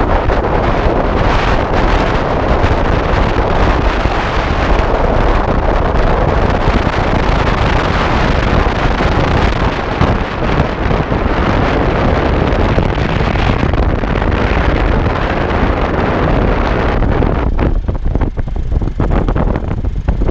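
Wind buffeting the microphone of a camera moving along at riding speed: a loud, steady rush that eases and turns gusty over the last few seconds.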